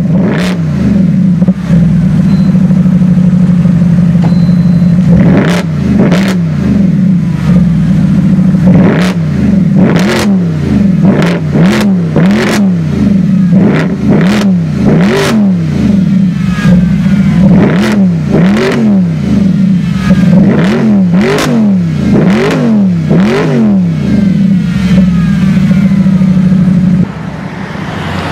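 Mercedes-Benz SLS AMG's 6.2-litre V8 through an Akrapovic exhaust, idling and then revved in a long series of quick blips, the pitch rising and falling about once a second, with sharp pops between the blips.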